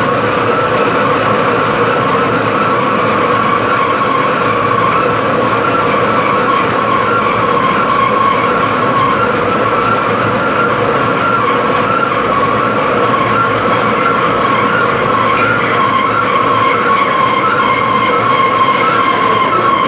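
Metal-cutting machine tool running steadily, a whine of several held tones over a mechanical hiss, with no change in pace.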